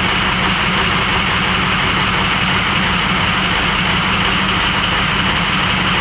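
Ford 6.0L Power Stroke V8 diesel in a 2005 F-350 running steadily at idle. It runs rough because several cylinders are not firing, which the mechanics trace to injector and FICM wiring faults.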